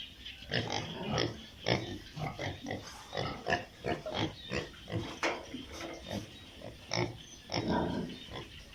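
Piglets grunting and squealing in short, irregular calls, one after another, with a longer, louder squeal near the end.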